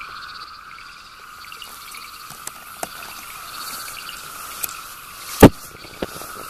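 A steady chorus of frogs and insects, with scattered small clicks and one loud, sharp pop about five and a half seconds in.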